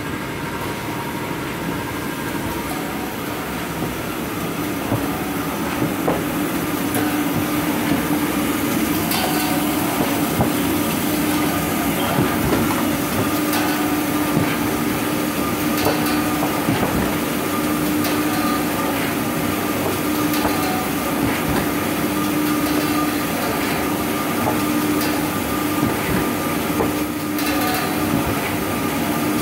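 Toilet paper production machinery running steadily, a continuous mechanical noise with a held tone and scattered clicks and knocks. It grows louder about five seconds in.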